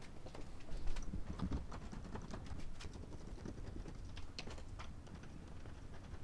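Hand tools clicking and tapping on metal engine parts under the hood: a run of irregular light clicks and knocks, with a duller handling bump about a second in.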